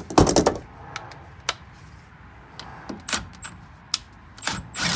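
Metal tools and brake parts clanking and knocking: a loud clatter at the start, then a few separate sharp knocks.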